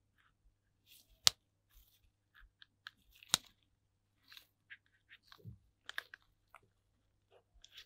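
Nitrile-gloved hands rubbing and pressing on a plywood board stacked on a silicone pad: scattered soft rustles and crinkles, with two sharp clicks about a second and three seconds in.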